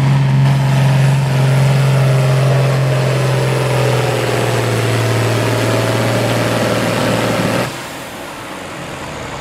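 John Deere tractor engine working hard under load, pulling a sled, its pitch sinking slowly as the sled's weight drags it down. It is cut back abruptly about eight seconds in as the pull ends.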